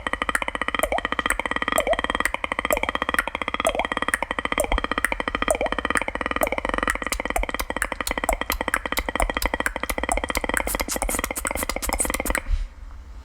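Beatboxing: a held, droning vocal tone with overtone blips, under a fast train of sharp mouth clicks that grows quicker in the second half. The beat cuts off suddenly near the end.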